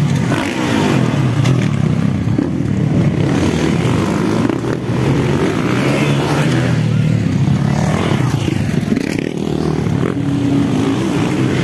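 Motocross dirt bike engines revving and running on a dirt track, the engine pitch shifting up and down as the riders throttle on and off.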